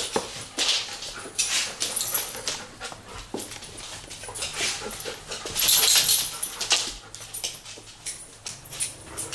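Golden retriever and Irish setter breathing hard and sniffing in repeated breathy bursts as they move about, with scuffling and short clicks in between.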